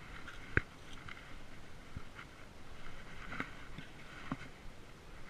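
Handling noise while a caught pike is held in the hands: light rustling with a few separate sharp knocks, the loudest about half a second in.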